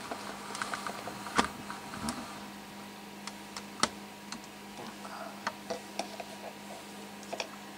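Scattered small clicks and taps at uneven intervals, sharpest about a second and a half in and near four seconds, over a steady low hum.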